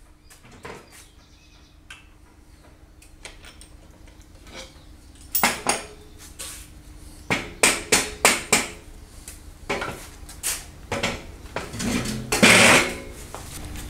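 Irregular knocks and clinks of hard objects being handled and set down. They are sparse for the first few seconds, then come thick and fast from about five seconds in, over a faint steady hum.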